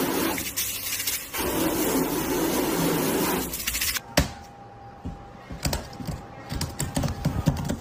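Water spraying onto a car bonnet, a steady hiss that cuts off about four seconds in. Scattered clicks and knocks follow, with a faint steady whine underneath.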